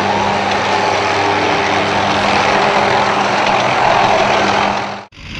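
A tank's engine running steadily amid the noise of a large crowd in the open. The sound cuts off suddenly near the end.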